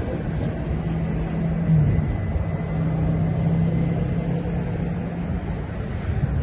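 Renfe Rodalies electric commuter train running past close by: a steady rumble of the wheels on the rails under a low electric motor hum.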